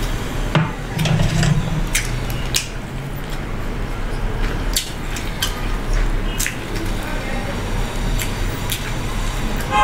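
Close-miked eating of fried chicken: chewing and tearing the crisp chicken, with irregular wet mouth clicks and smacks over a steady low hum.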